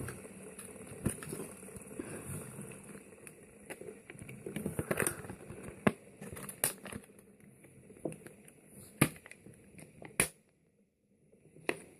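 Packaging being handled and crinkled while the fidget spinner is taken out, a low crackling rustle with scattered sharp clicks and knocks. The sound drops out to dead silence for about a second near the end.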